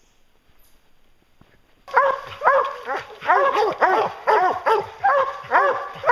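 A pack of English hounds baying treed at the base of a tree where they have a black bear up: loud, overlapping barks, two or three a second. The barking starts abruptly about two seconds in, after near quiet.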